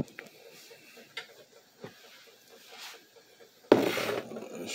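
Handling noise from a phone camera being moved and set up: a few light clicks and knocks, then, about three and a half seconds in, a loud rush of noise lasting about a second.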